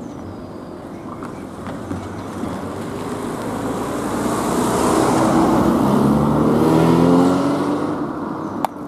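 A car drives over the level crossing and past close by. Tyre and engine noise builds to a peak about seven seconds in, and the engine note falls in pitch as it goes by. A sharp click comes just before the end.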